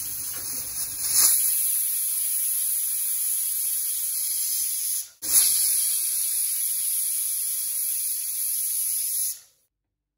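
Prestige Deluxe pressure cooker whistling: steam jets out under the weight valve with a loud, steady hiss, a sign that the cooker is at full pressure. There are two long hisses of about five seconds each, the second starting right after the first breaks off.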